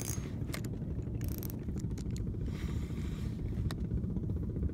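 A small outrigger boat's engine running steadily in a low, even pulse, with a few faint clicks and light scraping on top.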